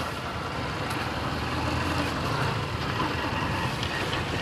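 Motor scooter engine running steadily while riding a rough dirt track, a low hum under a wash of road noise that swells a little midway.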